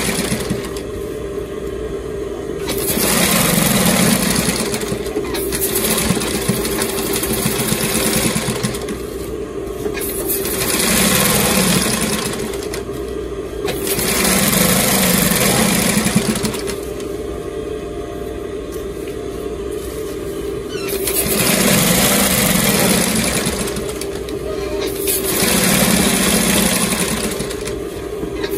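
Brother industrial sewing machine stitching in repeated runs of one to three seconds, stopping briefly between runs while the fabric is guided, over a steady motor hum.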